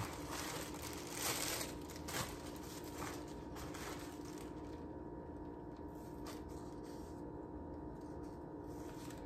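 Plastic deli bag crinkling and rustling as sliced deli meat is pulled out of it, in scattered bursts over the first four seconds or so. After that only a faint steady hum remains.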